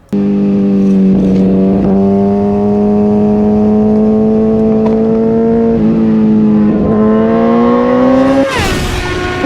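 Inline-four sportbike engine pulling at high speed under hard acceleration, its note climbing slowly and steadily with a few brief dips. Near the end there is a short loud rush of noise, after which the engine note is higher.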